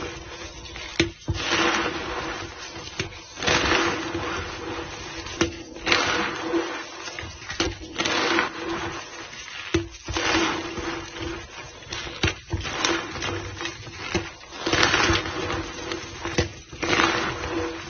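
White gym chalk powder being squeezed and pressed back into a block by hand, giving squeaky, crunchy squishes that swell about every two seconds, with a few sharp crackles in between.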